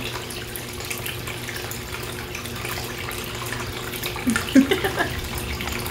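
Steady background hiss with a low hum underneath; a brief faint vocal sound about four and a half seconds in.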